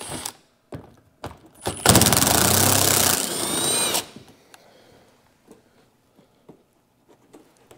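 Milwaukee M18 cordless impact driver backing out a 10 mm bolt that holds the fender to the bumper. It gives a brief blip at the start, then about two seconds of loud rapid hammering that winds down as it stops.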